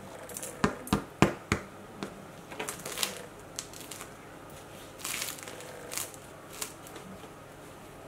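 A freshly baked charcoal sourdough loaf is handled on parchment paper over a wooden board. Four sharp knocks come in the first second and a half as it is set down, then scattered crinkling and rustling as the loaf is turned in the hands.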